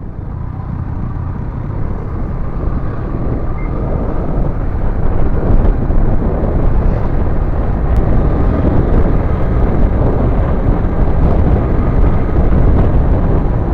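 Motorcycle riding noise: wind rushing over the microphone with engine and road noise underneath. It grows louder over the first five seconds or so as the bike picks up speed, then stays steady.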